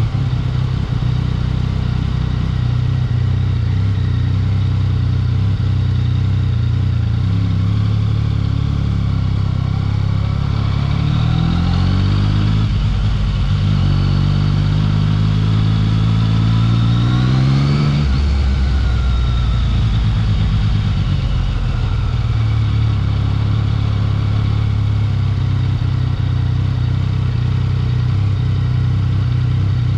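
Yamaha XSR900's inline three-cylinder engine running at low revs, heard close up; it rises in pitch twice in the middle as the bike accelerates, then drops back to low revs about two-thirds of the way through.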